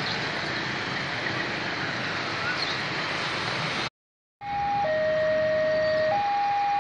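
A freight train's wagons passing with a steady rolling rumble of wheels on rail. After a short silent break, a railway level-crossing warning alarm sounds, switching between a higher and a lower tone a little over every second.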